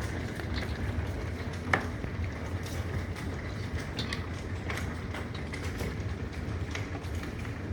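Steady rain and wind in a storm, with the wind rumbling on the microphone and scattered sharp ticks, one louder click near two seconds in.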